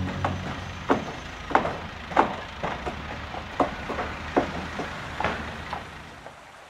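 Hammering on wooden framing: a dozen or so sharp, irregularly spaced blows over a steady background, fading toward the end.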